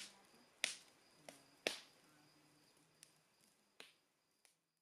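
Campfire crackling: wood in the fire giving sharp, irregular snaps and pops, about seven of them, a couple louder than the rest.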